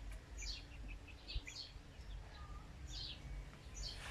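Young two-month-old Silkie chickens peeping: faint, short high chirps, a few each second, at irregular intervals.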